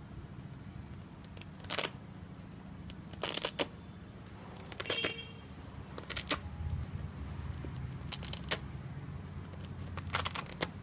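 Felt puzzle pieces being pulled off hook-and-loop (Velcro) tabs: a series of short rips, some in quick pairs, one every second or two, over a steady low hum.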